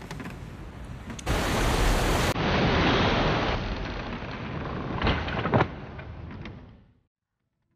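Rushing storm noise of wind and sea waves, swelling suddenly about a second in, with two sharp cracks about five seconds in, then fading out.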